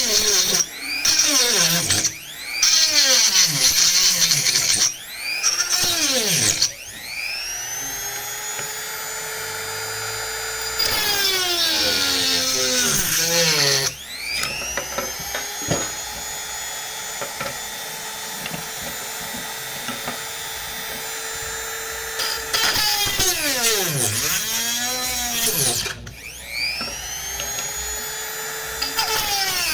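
Handheld rotary tool cutting into a plastic piece, its high-pitched whine sliding up and down as the motor speeds up and slows under load. It comes in short spurts for the first several seconds, then runs in long steady stretches with brief drops in speed.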